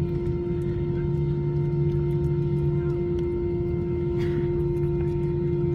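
Airbus A320 engines at low power heard inside the cabin while the plane taxis: a steady hum with one held tone over a low rumble, and faint light rattles.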